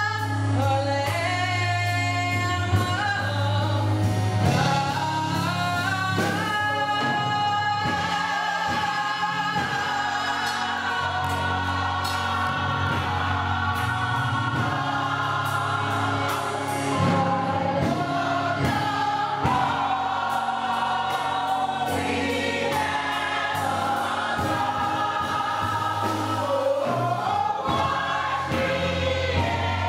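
Gospel choir singing with instrumental accompaniment: sustained voices over a steady bass line and drums.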